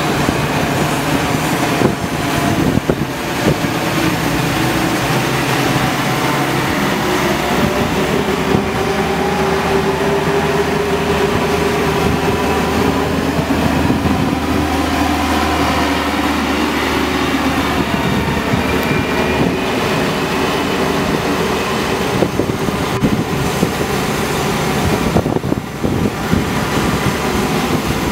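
Hidromek HMK 102B backhoe loaders' diesel engines running as the machines drive, a steady loud engine drone whose pitch rises and falls slightly.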